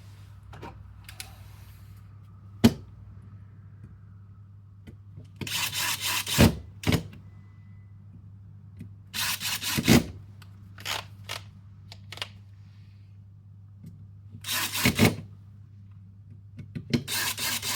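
Screws being driven into an airsoft gearbox shell, four times, each a rasping run of about a second that ends in a sharp click as the screw seats. A single sharp click comes a few seconds before the first one, over a steady low hum.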